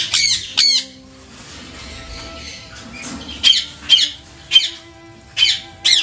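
Parrots screeching: two harsh calls at the start, then five more sharp squawks in quick succession from about three and a half seconds in.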